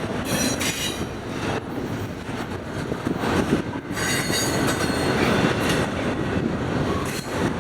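Norfolk Southern freight train rolling past with a steady rumble, with high-pitched wheel squeal that comes and goes.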